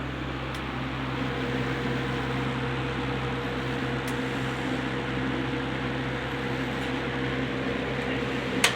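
Wizard window box fan running steadily on its rebuilt original motor with new bearings: an even rush of air over a steady motor hum, with one brief click near the end.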